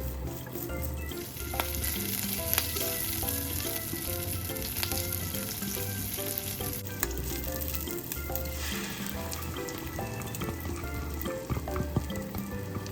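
Food sizzling in hot oil in a frying pan, loudest from about a second in until about seven seconds in, with scattered clicks of a utensil stirring in the pan.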